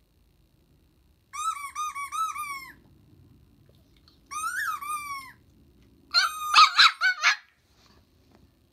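Squeaky toy sound effect squeaking through a laptop's speaker: a run of about five quick squeaks, a single longer squeak that rises and falls, then a louder, denser jumble of sharp squeaks about six seconds in.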